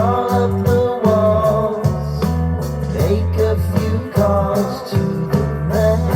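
A pop song with a sung vocal, guitar, drums and heavy bass, played back through a portable Bluetooth speaker for a sound test.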